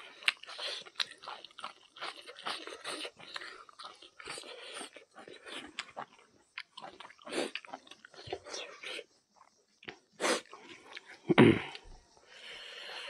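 Close-miked chewing and mouth smacking of a person eating rice and buffalo innards curry, with squelching as the fingers mix the rice and curry. Two louder sharp sounds come near the end.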